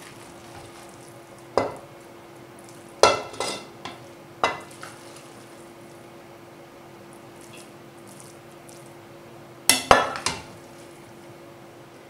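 A spoon clinking and scraping against a glass bowl and a porcelain plate while steamed rice is scooped out and served: a single clink, then a cluster of four about three seconds in, and a pair near the end. A faint steady hum runs underneath.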